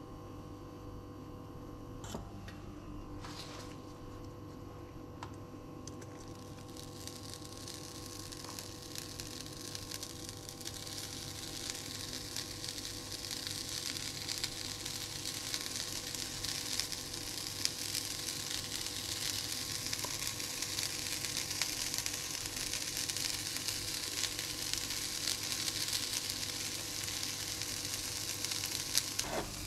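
An egg and sesame seeds frying in a non-stick pan, sizzling faintly at first and growing steadily louder as the pan heats. There are a couple of light taps in the first few seconds.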